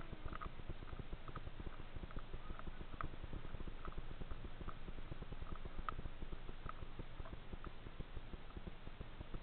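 Ferry's engines running as a steady low rumble heard from inside the passenger deck, while the ship pulls away from its berth, with faint clicks about once a second.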